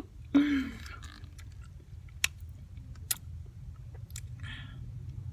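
A brief laughing breath just after the start, then a few faint sharp mouth clicks and a short wet smack about four seconds in, over a steady low hum.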